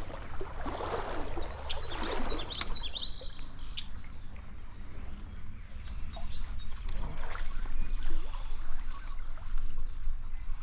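Trout stream water running with a steady low rumble. A small bird chirps a quick run of notes between about one and three seconds in.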